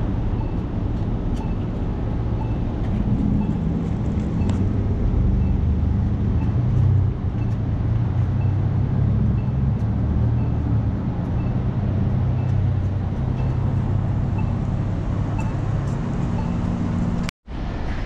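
Steady low engine rumble of motor traffic, with a faint high tick repeating about twice a second.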